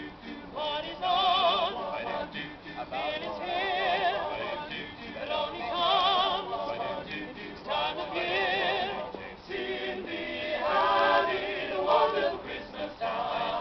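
A small unaccompanied choir singing a Christmas carol in several parts, the voices wavering with vibrato, in phrases of about two seconds with short breaths between them.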